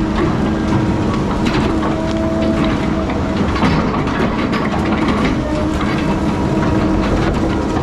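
Heavy diesel logging machinery running steadily, with irregular metallic clanks and knocks over the engine.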